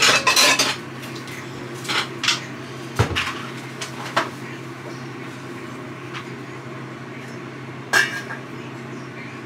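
Pots, pans and utensils clanking and clinking as cooking goes on, in separate knocks: a cluster at the start, more around two seconds in, a dull thump about three seconds in, and a last clank near the end. A steady low hum runs underneath.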